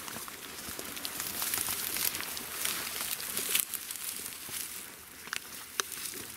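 Dry tall grass rustling and crackling as people and leashed spaniels move through it, with many small snaps of stems.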